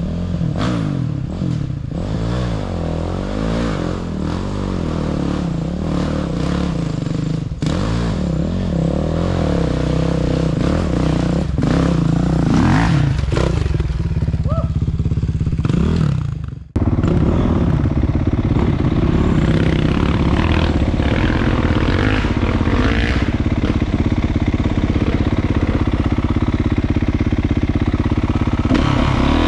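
Kawasaki KX450 dirt bikes' four-stroke single-cylinder engines revving up and down as the bikes ride over dirt, with some clatter. About 17 seconds in, the sound cuts out briefly. After that, one engine runs close-up at a steadier pitch under the rider.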